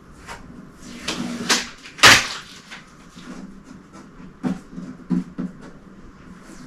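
Handling noises while unpacking a 3D printer: short knocks, scrapes and rustling as parts and packaging are moved, with one loud sharp clatter about two seconds in.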